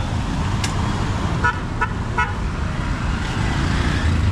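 Street traffic running, with motorbikes and cars passing, and a vehicle horn giving three short toots in quick succession about a second and a half in.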